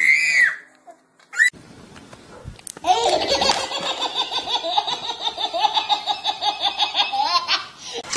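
Baby laughing hysterically: a long string of quick belly laughs, about five a second, starting just under three seconds in and running almost to the end. Just before it, near the start, a toddler gives a short high squeal.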